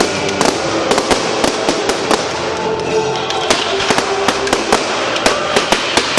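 Fireworks going off in quick succession, sharp cracks and pops several times a second, with music playing underneath.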